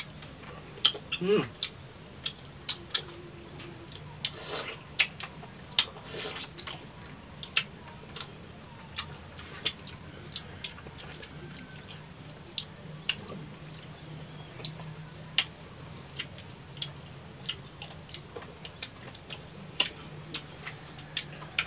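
Eating sounds of people chewing and sucking the sweet-sour pulp off santol fruit: scattered wet clicks and lip smacks, one or two a second, over a faint steady low hum.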